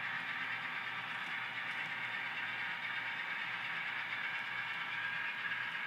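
Atlas RS-3 model diesel locomotive with an ESU LokSound decoder running steadily under load with a long train. The main sound is a steady hiss-like whine from the decoder's back-EMF motor control, not the motor itself, with a low steady hum beneath.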